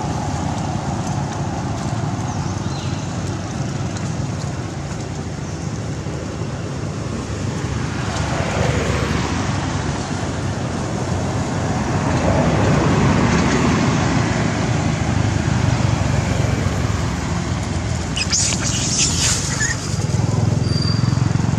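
Steady road-traffic noise, with a motor vehicle passing and the sound growing louder from about halfway through. A few brief, high, sharp sounds come near the end.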